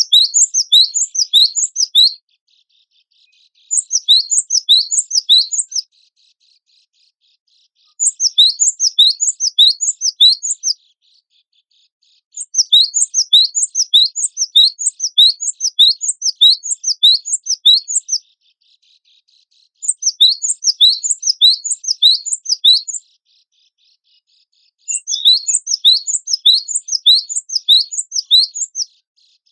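Cinereous tit (gelatik batu, wingko type) singing, with six bouts of fast repeated rising notes, about five a second, separated by short pauses.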